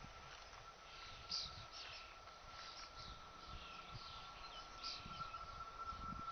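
Small birds chirping on and off, faint, over an irregular low rumble. A steady high whine runs underneath and grows a little louder toward the end.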